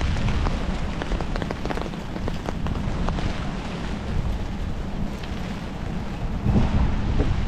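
Steady rain falling, with many sharp drop ticks over an even hiss and a low rumble underneath that swells about six and a half seconds in.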